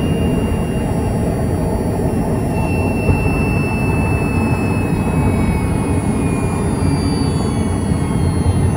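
Nissan Serena e-POWER's electric drive heard from inside the engine bay: a thin electric-motor whine that slowly falls in pitch as the van slows, over a steady low rumble.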